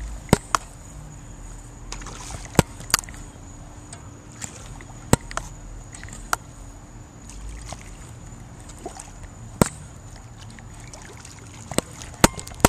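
Handling noise while a hooked fish is reeled in: about eight sharp, scattered clicks and knocks from the handheld camera and fishing tackle, over a low steady background hiss.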